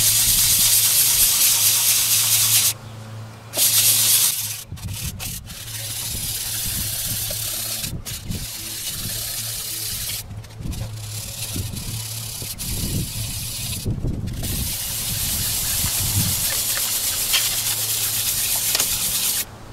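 Hand-sanding the cast-iron deck of a Toyota 1KZ-TE diesel block with 180-grit wet-and-dry paper on a sanding block, worked in circular strokes to clean up the block top. It is a steady abrasive hiss, broken by several brief pauses.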